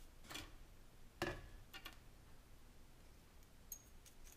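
Faint handling sounds of a shock cord being knotted by hand: a few brief rustles in the first two seconds, then a couple of light ticks near the end.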